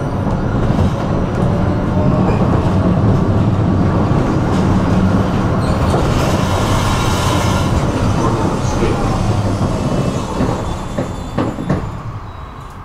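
Tram heard from inside, running along the track with a steady rumble of wheels on rails. Around the middle there is a faint squeal and hiss from the wheels, and near the end it grows quieter with a few knocks as the tram slows toward a stop.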